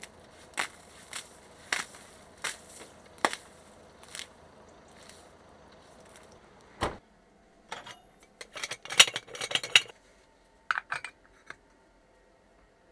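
Brisk scraping strokes of a hand tool clearing snow off a van's rooftop solar panels, about one every 0.7 s, ending with a knock. Then metal clinks and scrapes of a spoon filling an aluminium moka pot with ground coffee.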